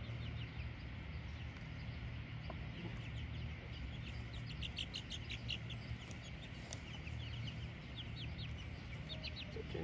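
Young chicks peeping: many short, high peeps that come in bunches, thickest about halfway through and again near the end, over a steady low rumble.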